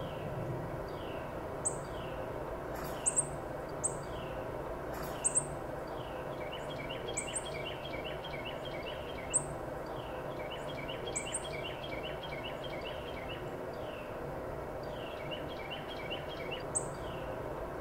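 Several small birds chirping and calling: short sharp high chirps every second or two, falling notes, and quick runs of short repeated notes, over steady outdoor background noise.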